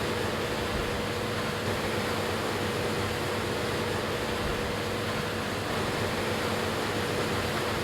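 New Holland CR9.90 combine harvester running steadily while cutting wheat: a constant noisy drone with a steady hum under it.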